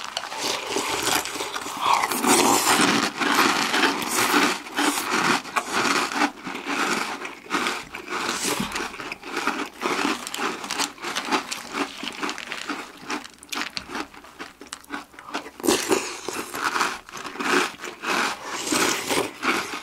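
Two people chewing mouthfuls of Oreo O's chocolate cereal in milk close to the microphone: rapid, continuous crunching, the cereal lightly soaked and still crisp.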